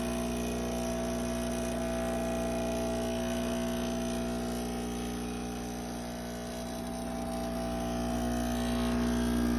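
Brewsley espresso machine's pump humming steadily after the brew button is pressed, with no water passing through: the machine runs but delivers no coffee.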